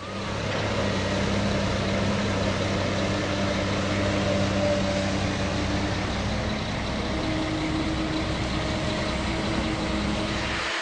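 The engine of a heavy machine or truck running steadily at one speed, its pitch shifting slightly about seven seconds in, over a dense steady hiss.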